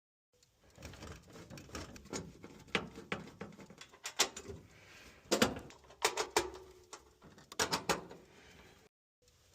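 Irregular knocks, clatters and scrapes of furnace sheet-metal panels and parts being handled as the blower compartment is opened up, the loudest clusters falling in the middle and near the end.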